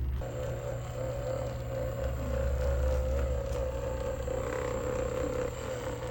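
Electric handheld massager running steadily with a slightly wavering whine, switched on about a quarter second in.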